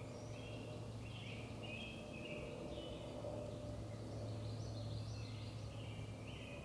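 Songbirds singing in spring woodland: a run of short chirping phrases one after another, over a steady low background hum.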